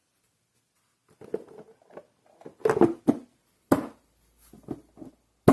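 Handling noises from reassembling a small outboard motor: a run of light clicks and taps, with a few sharper knocks, the sharpest near the end.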